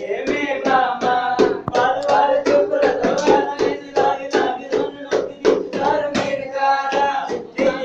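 Voices singing a song to steady hand clapping, about three claps a second.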